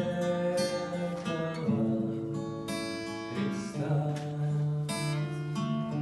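A slow song: a voice sings long, drawn-out words over strummed acoustic guitar.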